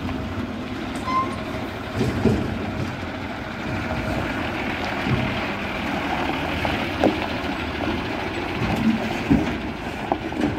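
Tata tractor-trailer running slowly past at close range, its diesel engine rumbling and its tyres crunching over gravel, with several sharp knocks from the loaded flatbed rig.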